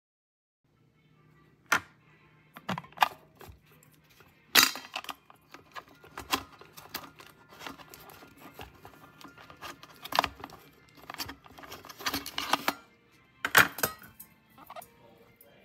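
A series of irregular sharp clicks, taps and knocks of objects being handled, over a faint steady hum.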